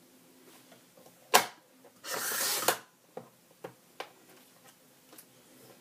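A sharp click, then the blade carriage of a Fiskars sliding paper trimmer running briefly along its rail and slicing through a sheet of paper with a short scraping swish. A few light clicks follow as the paper and trimmer are handled.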